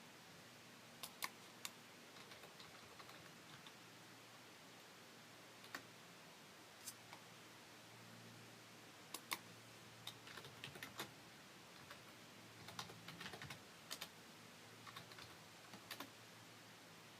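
Irregular sharp clicks and light taps, some single and some in quick runs, over a quiet room with a faint low hum.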